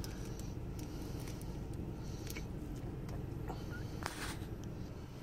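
Steady low hum inside a car, with a few faint clicks and rustles from handling the food and sauce tub.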